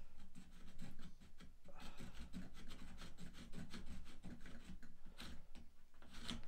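A hand file rasping against the wood inside a chair joint, in quick, uneven back-and-forth strokes.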